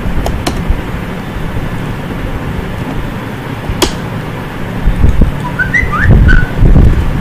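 Steady low background hum with a few sharp computer-mouse clicks. About six seconds in come a handful of short high chirps with some low thumps.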